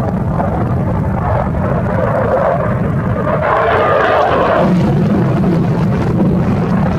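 Fighter jet engines roaring as the jets fly past: a steady, loud rush of jet noise that swells a little about halfway through.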